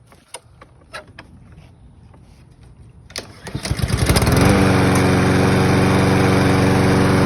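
A few light clicks, then a Troy-Bilt TB240 lawn mower's Honda engine is pull-started about three seconds in: it catches at once, rises quickly in speed and settles into steady running. It starts right up on a fresh spark plug, which cured its no-start fault.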